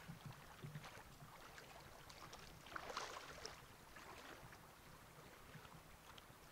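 Faint sloshing of stream water, with one brief louder splash about three seconds in.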